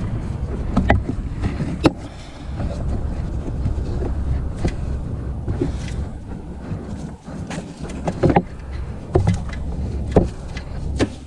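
Loud rumbling and scraping with scattered sharp knocks, from a ribbed accessory drive belt being worked by hand over the alternator and crankshaft pulleys close to the microphone.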